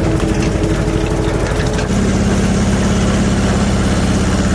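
Engine running steadily; about two seconds in its note shifts, the higher tones giving way to a deeper, steady hum.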